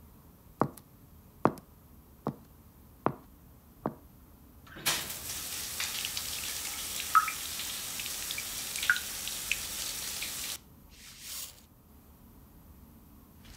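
Five sharp taps of a stiletto heel, evenly spaced under a second apart. Then a shower of water runs for about six seconds with a few drips plopping in it, and cuts off suddenly. A brief swish follows.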